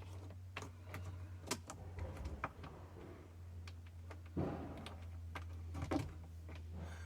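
Scattered light clicks and taps from hands handling wiring and plug parts, over a steady low hum.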